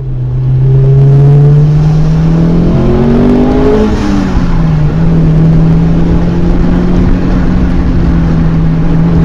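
A loud motor-vehicle engine running under load, its pitch rising for a few seconds and then dropping about four seconds in, then holding steady.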